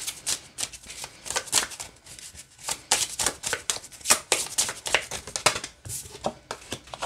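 A small deck of oracle cards shuffled by hand: an irregular run of quick flicks and taps as the cards slide and knock against each other.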